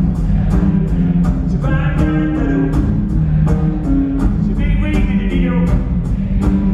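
Live rock band playing through the venue's sound system: drums with a steady beat of cymbal strokes, bass and keyboards holding low notes, and a lead voice singing phrases over them.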